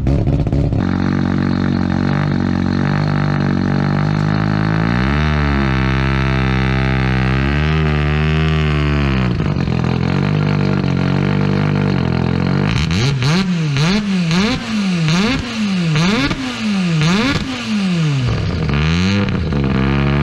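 A rallycross car's 13B Wankel rotary engine idling, then revved up and held at higher revs for a few seconds before dropping back. Then a second rallycross car's engine idles and is blipped up and down quickly many times in a row.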